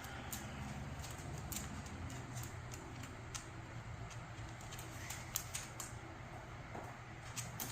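Steady low hum and background hiss in a room, with scattered light clicks and small knocks.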